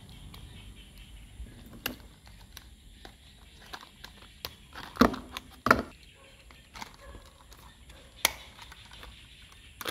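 Hard plastic toy excavator parts clicking and knocking together as the arm and turntable are fitted onto the base, with two louder knocks about halfway through.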